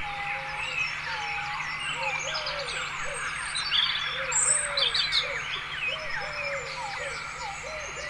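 A dense chorus of many birds chirping and calling over one another, with a few louder, sharper calls around the middle, over a steady low hum.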